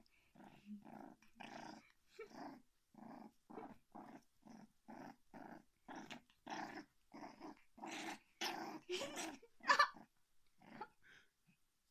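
A young puppy play-growling while its belly is rubbed: a steady run of short growls, about two a second, growing stronger near the end.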